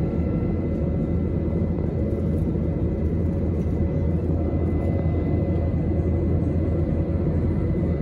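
Jet airliner cabin noise in cruise, heard from a window seat over the wing: a steady low rumble of the engines and airflow, with faint steady whining tones above it.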